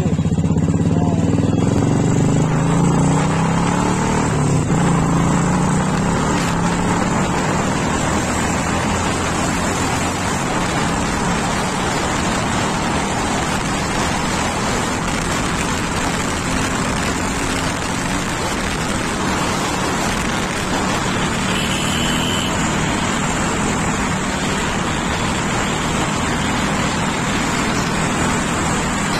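Motorcycle engine running while riding, with wind rushing over the microphone. The engine note is clearest and shifts in pitch in the first few seconds, then steady wind noise covers it.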